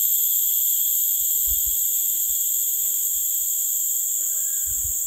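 Forest insects droning steadily, a constant high-pitched chorus with several pitch bands held without a break.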